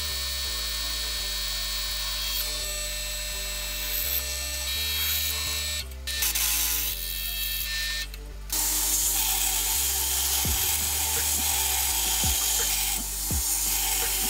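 Drill press running with a steady whine as a twist drill bores through a flat steel bar. From about eight seconds in, a belt grinder gives a loud, steady hiss as the bar's end is ground against the belt. Background music plays throughout.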